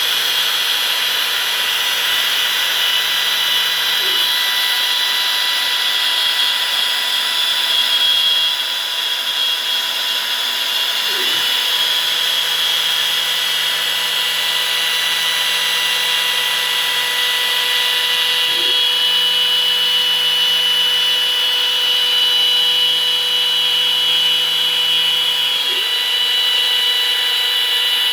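Milling machine running: a steady whine of several even tones over a high hiss, with a brief low sliding sound about every seven seconds.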